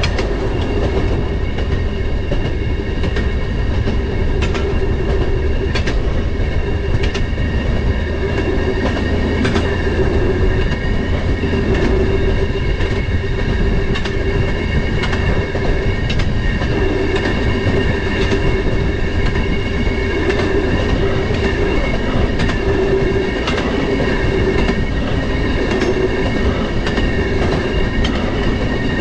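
Railroad motorcar running along the track: a steady engine drone and wheel rumble with a constant hum, and the wheels clicking now and then over rail joints.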